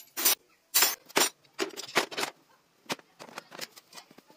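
Metal spanners and wrenches clattering as they are dropped one after another into a hard plastic Bosch tool case, a string of separate sharp knocks. Near the end come lighter, quicker clicks as the lid of the case is shut.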